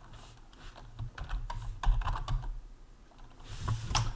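Typing on a computer keyboard: short irregular runs of key clicks, with a louder click near the end.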